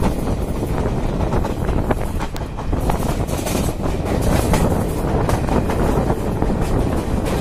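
Passenger train coaches running at speed: a steady rush of wheels on the rails with many irregular clicks as the wheels pass over joints, and wind buffeting the microphone held outside the moving coach.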